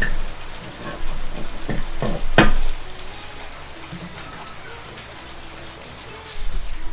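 Metal transmission parts clunking and knocking as they are handled and set back in place, a few knocks in the first three seconds with the loudest about two and a half seconds in, then quieter handling noise.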